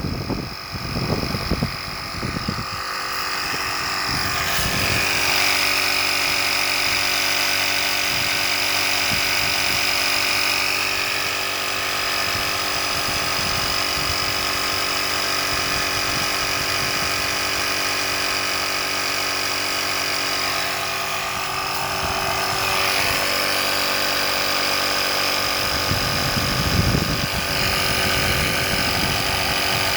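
Built-in air compressor of an EverStart portable jump starter running steadily, a small motor with a high whine; its tone shifts slightly a few seconds in and again about two thirds of the way through.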